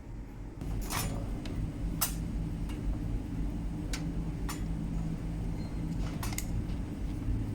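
A few light clinks and clicks, about seven scattered through, over a steady low rumble.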